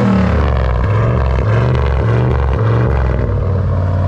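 1992 Chevy pickup's engine running after a new fuel pump and fuel filter have been fitted, the engine note rising and falling slightly.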